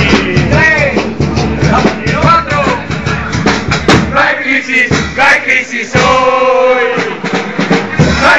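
A Carnival chirigota group singing a song with drum accompaniment, holding a long note about six seconds in.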